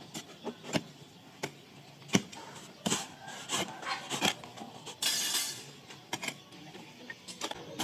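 A run of irregular sharp knocks and clinks, with a brief scraping rush about five seconds in.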